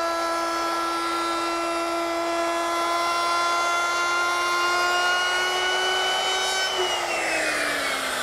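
Router fitted with a 5/32-inch Roman ogee bit running at full speed, a steady high whine, as it cuts an ogee profile along the edge of a pine board. About seven seconds in it is switched off, and the whine falls in pitch as the motor winds down.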